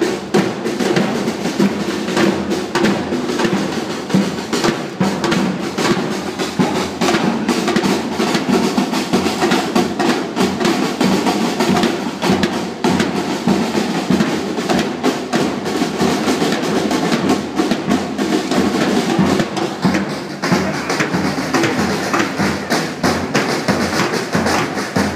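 Murga drum section playing: bass drum and snare drum beating continuously in a dense rhythm.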